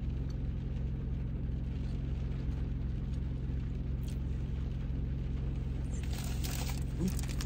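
Car engine idling, a steady low hum heard from inside the cabin. Some rustling comes in near the end.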